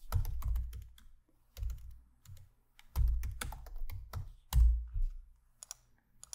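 Typing on a computer keyboard in quick bursts of keystrokes with short pauses between, the heaviest keystroke about two-thirds of the way in.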